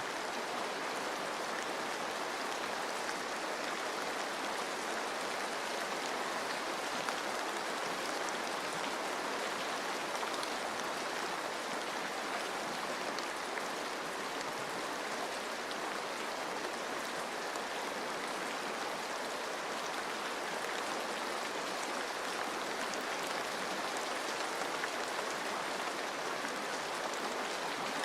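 Steady rain falling on forest leaves, mixed with a flowing stream: an even, constant hiss with faint scattered drop ticks.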